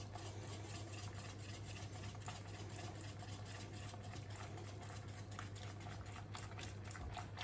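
Whisk scraping and tapping against a saucepan as flan custard is worked on the heat while it thickens, small irregular strokes several times a second. A steady low hum runs underneath.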